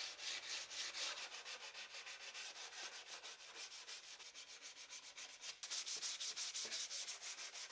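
Hand sanding of cedar wood with 220-grit sandpaper: quick, even back-and-forth scratchy strokes, faint, a little stronger in the second half.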